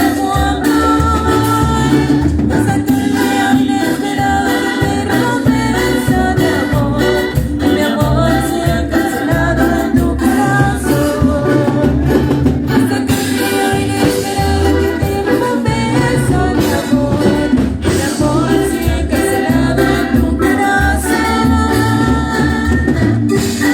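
A cumbia band playing live, with sung vocals over a steady, pulsing bass beat.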